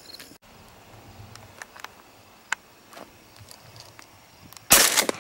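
A single loud shotgun blast near the end, after a stretch of quiet field with faint scattered ticks and rustles.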